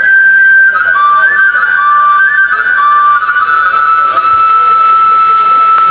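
Flute-like wind instrument playing a slow solo melody note by note, then settling into one long held note about halfway through.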